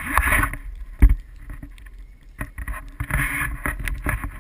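Close handling noise on a sled-mounted camera: rustling and rubbing, with one hard thump about a second in and a few lighter knocks near the end.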